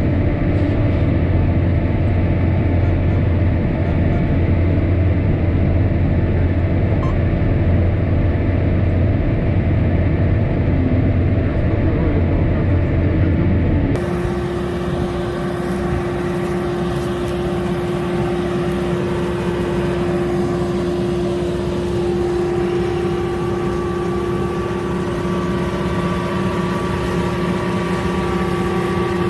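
Heavy farm machine's engine droning steadily, heard muffled inside the cab. About halfway through it cuts to a different steady machine hum with a held whine.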